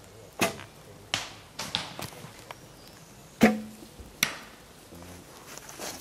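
Recurve bow shooting: a series of sharp cracks from bowstrings being released and arrows striking. The loudest comes about three and a half seconds in, followed by a short low twang.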